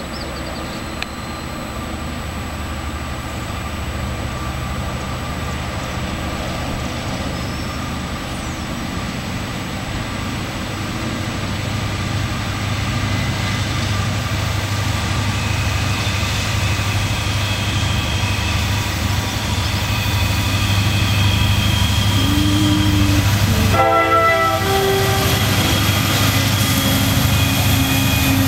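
Locomotive diesel engines of an approaching coal train: a lead EMD SD70 with its two-stroke 16-cylinder 710 engine and a trailing GE Evolution-series unit, running steadily and growing louder as they draw near. A short horn blast sounds about three-quarters of the way through.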